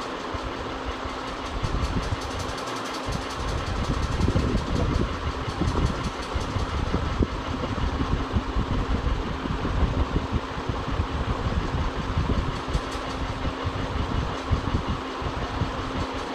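Ceiling fan running with a steady hum and an uneven low rattle that gets louder about four seconds in: the noise of a worn fan bearing.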